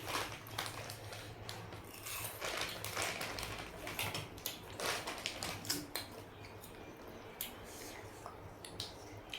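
Close-up eating: a crunchy Akabare kurkure snack being bitten and chewed, irregular crunches and crackles that thin out in the second half.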